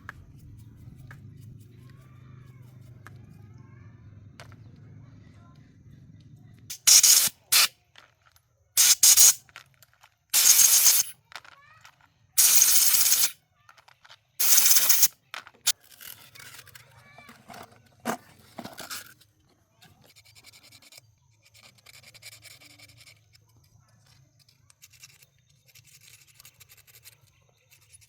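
Five loud hissing blasts from a pressurized nozzle, each about a second long or less, coming in quick succession starting about seven seconds in. Before them there is a faint low hum, and after them faint clicks and handling sounds.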